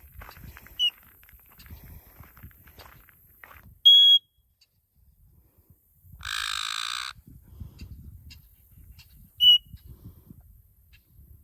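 Black-headed caique giving short, piercing whistles: a small one about a second in, a very loud one about four seconds in and another near ten seconds, with a harsh, rasping call about a second long in between. Footsteps rustle underneath.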